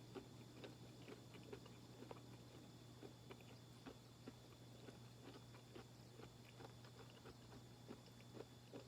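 Faint chewing of a chewy peanut granola bar: soft, irregular little clicks and crunches over a low steady hum.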